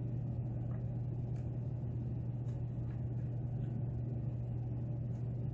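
Steady low electrical or motor hum, with a few faint light ticks of a lock pick working the pins of a pin-tumbler lock.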